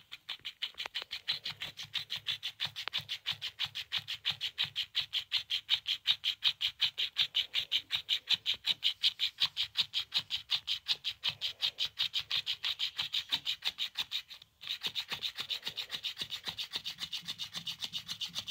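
Electric flopping-fish cat toy wagging its tail, its motor and flapping tail making a steady, rapid mechanical ticking, about seven ticks a second. It breaks off briefly about three-quarters of the way through, then carries on.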